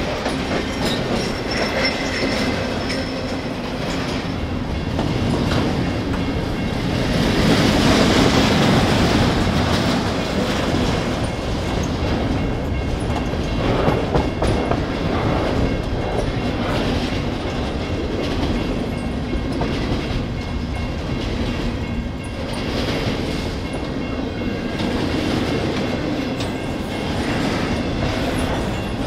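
Double-stack intermodal container train rolling past: the steady rumble and clatter of its well cars' steel wheels on the rails. It swells louder about eight seconds in.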